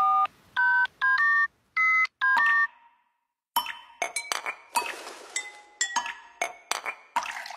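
A quick string of telephone keypad dialing tones, each a short beep made of two steady pitches. After a brief pause comes an irregular run of sharp clinks and taps with a short ring.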